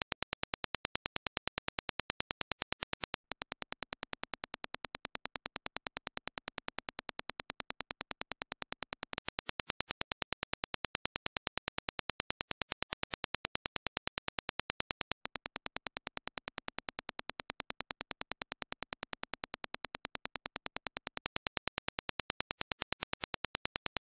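Reference Dirac impulse test signal: a rapid, even train of sharp clicks, several a second, each a single impulse.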